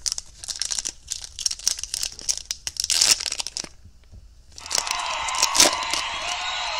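Foil wrapper of a 2021 Topps Opening Day baseball card pack crinkling and crackling as it is handled. After a brief pause, about two-thirds of the way in, it gives way to a long continuous rip as the foil is torn open.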